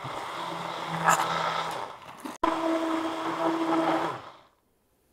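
Small electric blender running, blending chopped parsley with water, with a steady motor hum. It cuts out for an instant about two and a half seconds in, starts again and stops near the end.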